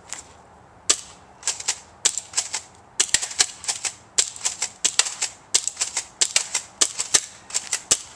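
Airsoft gun being fired repeatedly: sharp snapping clicks, often in quick groups of two to four, starting about a second in and coming every half second or so.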